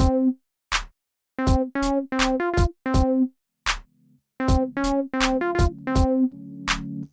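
Music: a hip-hop beat of short, repeated synth-keyboard notes played in quick groups over drum-machine kicks, with a short break in the middle and a low held bass note near the end.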